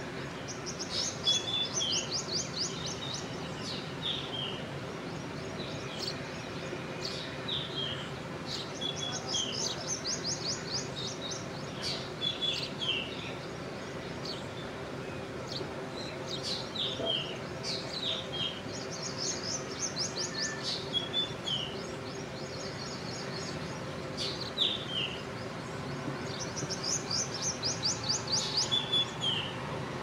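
Birds calling: a fast, high trill of many short notes lasting about two seconds, heard four times, with short down-slurred whistles between the trills. A steady low background hum runs underneath.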